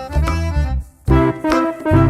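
Background music with a steady beat: bass hits about twice a second under keyboard and horn-like melody, with a brief break just before a second in.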